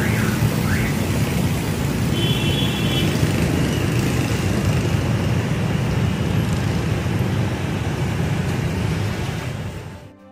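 Busy street traffic, mostly motorbikes running past in a steady stream, with a brief horn beep about two seconds in; the sound fades out near the end.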